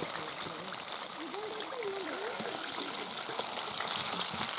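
Battered chicken drumsticks deep-frying in a pan of hot oil, a steady crackling sizzle.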